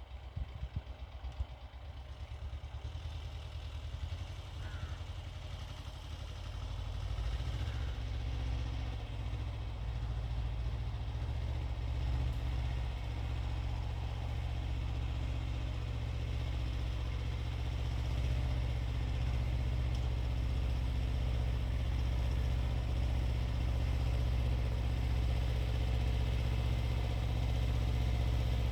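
Xingtai 220 compact tractor's diesel engine running steadily while driving a 130 cm rotary tiller, growing louder over the first seven seconds or so and then holding steady.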